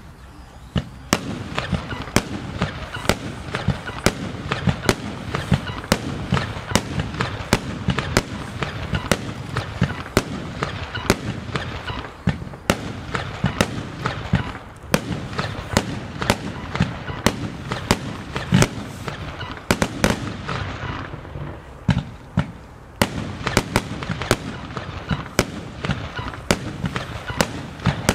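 Röder "Marienburg" compound firework battery firing shot after shot. Sharp bangs come about one or two a second from launching tubes and bursting shells, over a dense hiss and crackle, easing briefly twice before picking up again.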